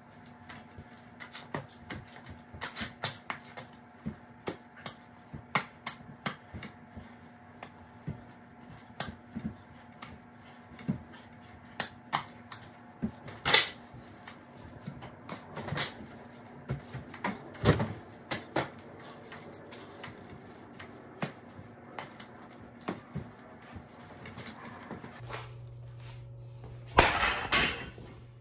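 A metal storage shelf clicking and knocking irregularly during arm warm-up exercises, over a steady hum. Near the end, a brief loud rush of a baseball bat being swung.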